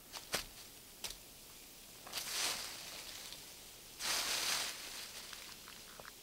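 Dry leaves rustling in two short swishes, each under a second, the second about two seconds after the first. A couple of faint clicks come before them.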